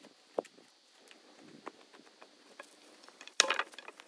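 Footsteps and light knocks on rough ground, with one heavy wooden thump about three and a half seconds in as a cut telephone-pole post is handled.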